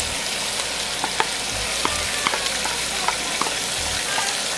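Diced onions and celery sizzling in hot oil in a large aluminium pot with browning sausage and chicken, stirred with a wooden spoon: a steady sizzle with scattered sharp clicks and pops.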